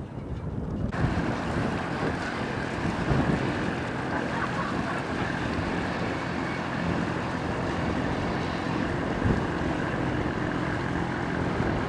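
Small motorboat's engine running steadily as it crosses open water, with wind buffeting the microphone. The sound changes suddenly to this about a second in.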